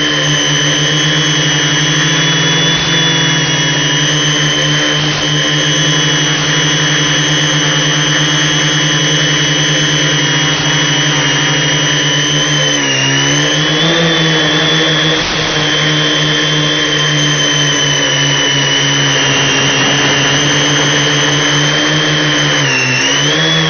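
Multicopter's electric motors and propellers running in flight with a steady, high buzzing drone. The pitch dips and climbs back briefly about halfway through and again near the end as the throttle changes.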